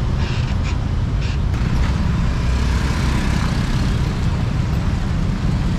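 Road traffic at close range: cars and motor scooters driving past, a steady rumble of engines and tyres.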